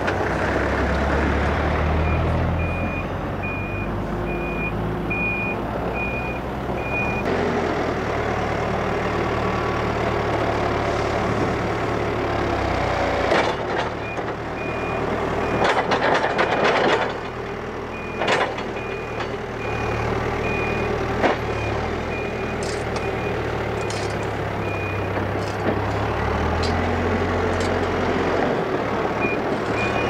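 Hidromek HMK 102S backhoe loader's diesel engine running under load while its reversing alarm beeps steadily in two long stretches. A little past the middle, loose sand rushes and scrapes out of the front bucket into the trench.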